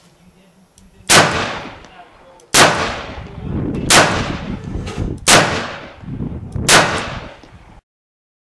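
Smith & Wesson Chief's Special .38 snub-nose revolver firing five shots, evenly spaced about a second and a half apart, each with a short ringing echo. The sound cuts off suddenly near the end.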